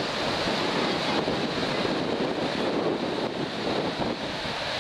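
Storm wind buffeting the microphone over choppy harbor water: a steady rushing of gusts and waves.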